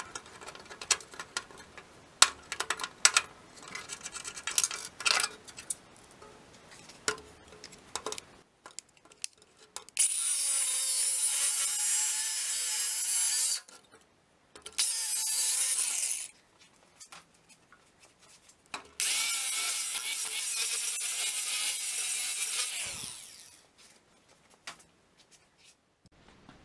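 Cordless angle grinder grinding steel sheet metal in three bursts: two of about four seconds each, with a shorter one between them. The last burst winds down as the motor stops. Before the grinding there are light scraping and clicking sounds of hand work on metal.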